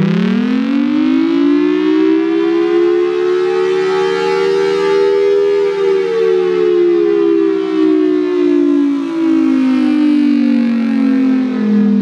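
Federal Sign & Signal Thunderbolt 1003 siren sounding a two-tone chord from its rotating horn. The pitch winds up over about five seconds and then slowly falls away: the rising-and-falling wail of the attack signal.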